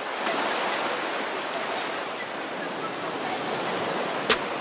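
Choppy sea waves washing and breaking, a steady rushing hiss, with one sharp click about four seconds in.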